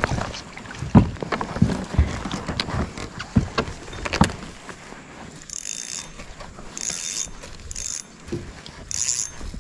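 Sharp knocks and clicks of fishing gear being handled against a plastic kayak hull, then four short whirring bursts of a fishing reel in the second half.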